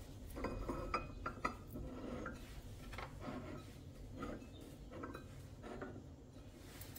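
Glass and metal kitchenware clinking and rubbing as it is handled: a string of light, irregular clinks, some with a brief ring.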